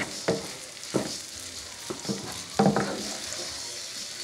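Rice frying in a large skillet over a low flame: a steady sizzle, with irregular knocks and scrapes of a wooden spatula against the pan as the rice is stirred.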